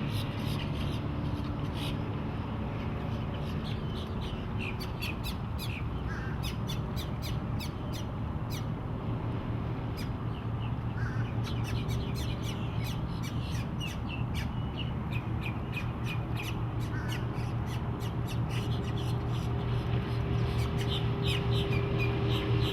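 Twin Yamaha 130 HP V4 outboard motors running under way, a steady hum, with many sharp slaps and clicks over it from the hull and water. It gets louder near the end.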